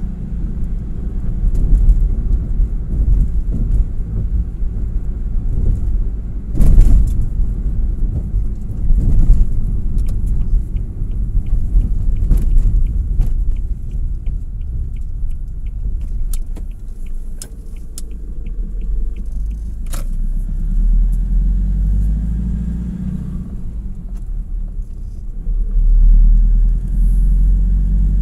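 Vehicle driving on a concrete road: steady low rumble of engine and tyres, with a few knocks over the slab joints. In the middle a turn signal ticks evenly, about twice a second.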